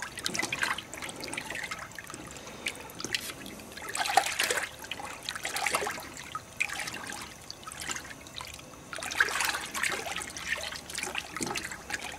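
Antifreeze-and-water coolant sloshing and swirling in a plastic bucket as it is stirred with a wooden stick, in uneven swells.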